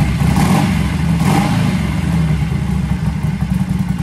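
Harley-Davidson Sportster 1200's air-cooled V-twin running after a long-sitting bike has just been started, said to have Harley Stage 1 pipes and intake. The revs rise and fall about a second in, then it settles to a steady idle.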